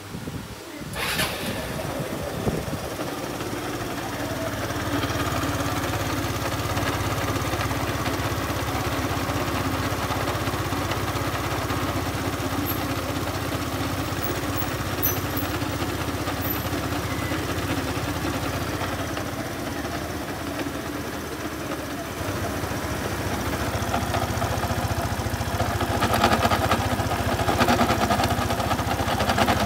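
Yamaha BWS X scooter engine started about a second in and then running steadily, its CVT transmission making the abnormal noise that is traced to a damaged needle bearing in the driven pulley. The engine gets louder over the last few seconds.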